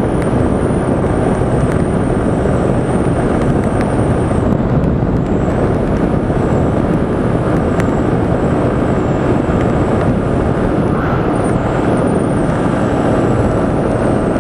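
Motorcycle cruising steadily at highway speed, around 100–120 km/h: a constant rush of wind and road noise with the engine running underneath.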